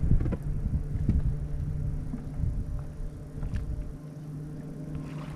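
Steady electric hum of a bass boat's trolling motor, with wind rumbling on the microphone for the first four seconds before it eases, and a few faint clicks.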